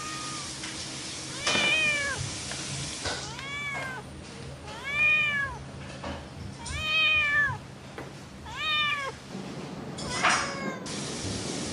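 Long-haired tabby cat meowing: about six short meows one to two seconds apart, each rising then falling in pitch.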